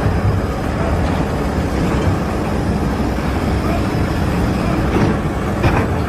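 Steady low rumble of a heavy engine or machine running.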